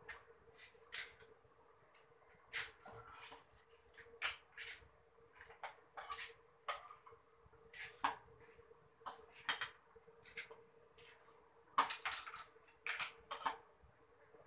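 Kitchen knife and dishes clinking and knocking irregularly as a cucumber is cut over a plate and wooden chopping board, with a faint steady hum underneath.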